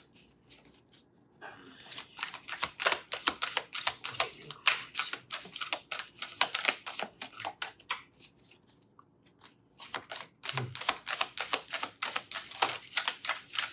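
A deck of tarot cards being shuffled by hand: fast runs of crisp card flicks and riffling clicks, with a pause of about two seconds past the middle.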